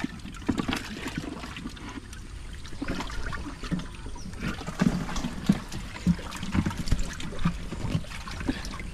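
Water sloshing and trickling in plastic jerry cans as they are lifted and set down in a wooden canoe, with irregular hollow knocks of plastic against the wooden hull.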